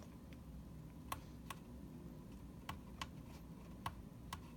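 Small tactile push buttons on a breadboard alarm-clock prototype being pressed, about seven faint, sharp clicks at uneven spacing as the alarm time is set.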